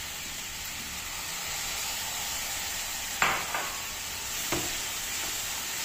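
Onion-tomato masala sizzling steadily in a stainless steel kadhai, with a spoonful of water added so the tomatoes cook down to a mash. Two brief sharp sounds come a little past halfway.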